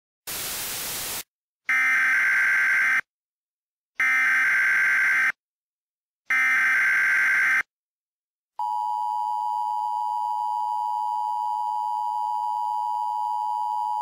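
A brief burst of static, then three Emergency Alert System SAME header data bursts about a second apart, followed by the two-tone EAS attention signal held steady for about six seconds.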